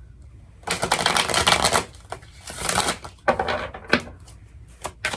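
Oracle cards being shuffled by hand: a long rustling burst about a second in, shorter ones after it, then a quick run of snapping clicks near the end.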